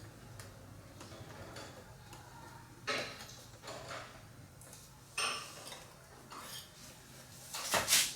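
A few separate light clinks and knocks of small hard objects being handled, the loudest near the end, over a faint steady low hum.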